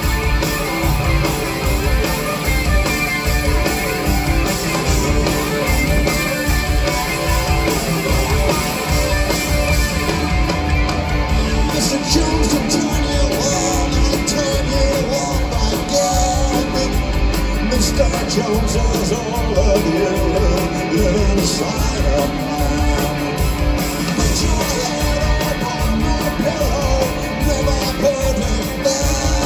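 Live rock band playing loudly, with drums, bass guitar and keyboards, heard from within the audience.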